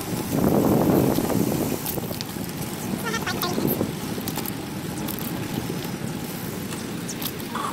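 Wind rushing over a phone's microphone while riding a bicycle, loudest in the first second or two and then a steadier, lower rush.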